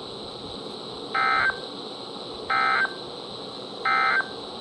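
NOAA Weather Radio receiver playing the Emergency Alert System end-of-message code: three short, identical bursts of data tones about 1.4 seconds apart over steady radio hiss, signalling that the test message has ended.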